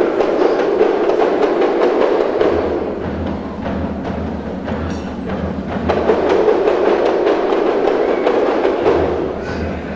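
Percussion music: many drums beaten together in a fast, dense rhythm with no tune. It eases a little in the middle and swells again, and a low pulsing beat joins about two and a half seconds in.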